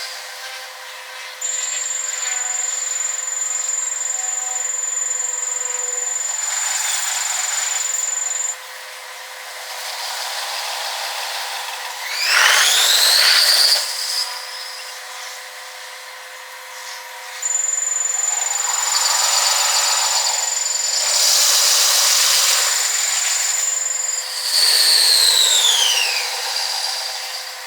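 Railway level crossing in Japan with its warning bell ringing steadily while trains pass. Heavy rolling noise comes and goes, with a rising whine about twelve seconds in and a falling whine near the end.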